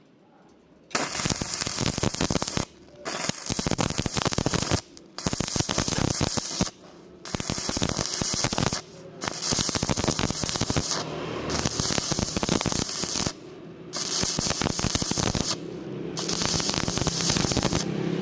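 Stick (arc) welding, the arc crackling and sizzling as iron rod is welded onto thin square tubing. It starts about a second in and comes in short runs of a couple of seconds, broken by brief pauses where the arc is stopped.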